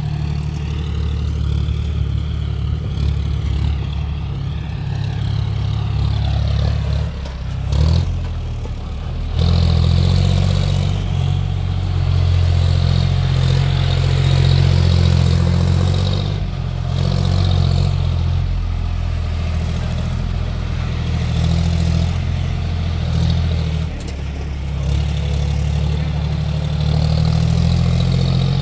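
John Deere tractor's diesel engine working under load, pulling a fully loaded trolley, with a steady low engine note throughout.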